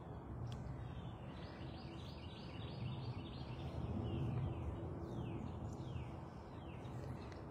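A bird singing a quick run of short downward-slurred notes, about three a second, over a low steady background rumble.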